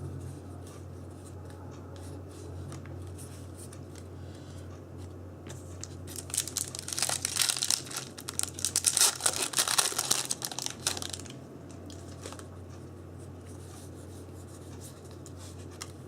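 Foil trading-card booster pack being torn open and its wrapper crinkled: a loud crackling that runs for about five seconds from about six seconds in. A low steady hum lies under it.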